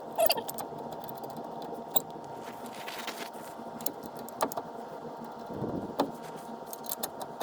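Scattered sharp metallic clicks and clinks of hand tools and brake parts being handled, a few seconds apart, over a steady background hum.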